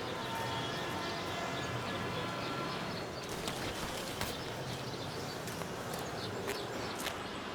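Steady background noise with scattered sharp clicks and taps, more of them after about three seconds, and a few faint short chirps in the first two seconds.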